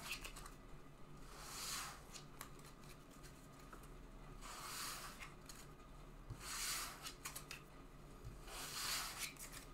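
Trading cards being handled and put away: four faint, soft rustling swishes a couple of seconds apart as the cards slide against each other and the table.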